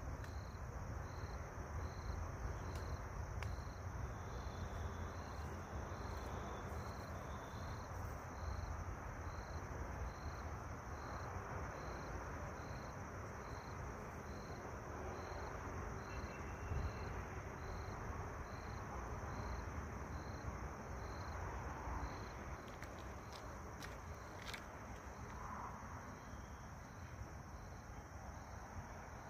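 Insects chirping in a steady rhythm, a high chirp a little over once a second, over a constant high insect hum and a low rumble of wind or handling noise.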